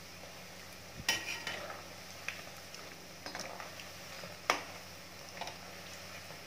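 Spinach pakoras sizzling faintly in hot oil while a perforated metal skimmer turns them over. The skimmer scrapes and clicks against the pan about half a dozen times, the loudest knock about four and a half seconds in.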